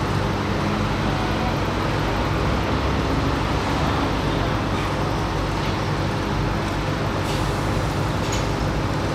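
Large diesel engine running steadily, a constant low hum, with a couple of faint metallic clicks near the end.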